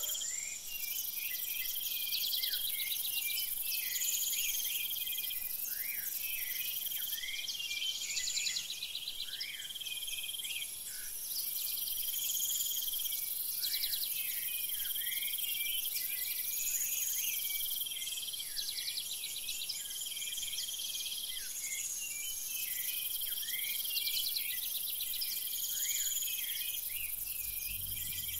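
Dense chorus of insects: crickets and similar insects trilling steadily, with a high hiss and short chirps overlapping, and a higher arched call recurring about every two and a half seconds.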